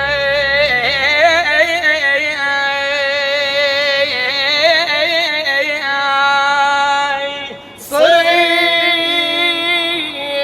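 Arabic song: a long wordless melodic passage of held, wavering notes, sung by a female voice, with a short break about three-quarters through before a new note starts.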